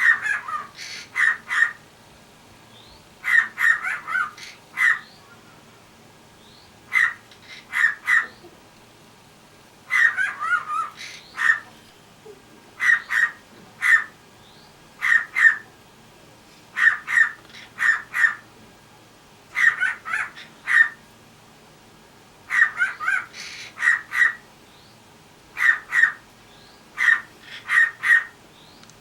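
Cockatiel mimicking a dog's bark: short, sharp bark-like calls in quick runs of two to four, repeated with pauses of a second or two between runs.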